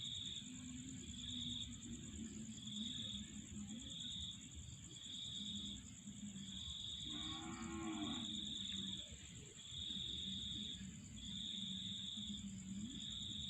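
Insect chorus: a steady high-pitched buzz and a chirp that pulses about once a second, over low, wavering droning calls. About seven seconds in comes a louder, low call lasting about a second and a half that rises and falls.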